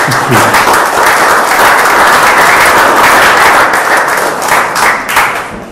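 Audience applauding: many hands clapping at once, steady and loud, dying away with a few last claps near the end.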